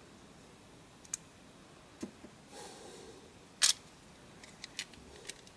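Scattered small clicks and taps of plastic parts and tweezers as the Sony Rolly's gear housing is handled: a sharp click about a second in, a soft rustle, a louder click a little past halfway, and a run of light ticks near the end.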